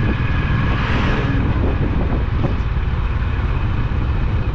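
Honda CB350RS single-cylinder engine running steadily at riding speed, heard from the bike itself. A truck coming the other way passes about a second in as a brief rush of noise.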